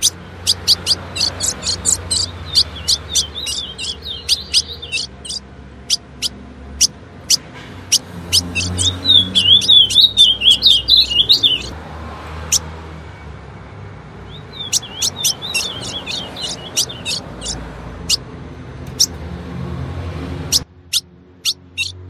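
Female ultramarine grosbeak (azulão) calling: a long run of sharp chip notes, several a second, broken twice by stretches of fast warbling. A steady low background noise runs beneath and drops away near the end.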